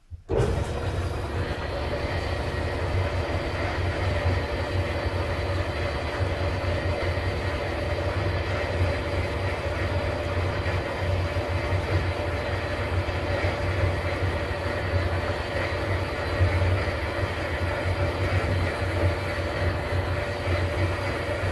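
Vertical band saw running and cutting a steel bar to rough out a part. The sound is steady, with a strong low hum, and it starts abruptly.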